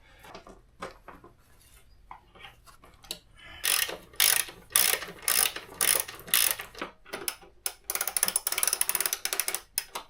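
Socket ratchet wrench tightening a bolt that holds the engine to the mower deck: a run of ratchet strokes about two a second, then a quick burst of fast clicking near the end.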